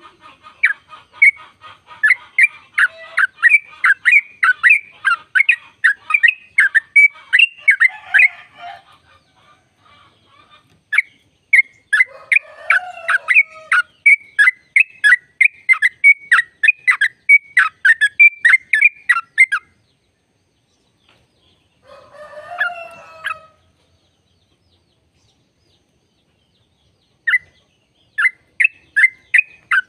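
Yellow-vented bulbul singing its rapid rolling song: two long runs of quick, evenly repeated chirps, a short harsher call about two-thirds of the way in, then the chirping starting up again near the end.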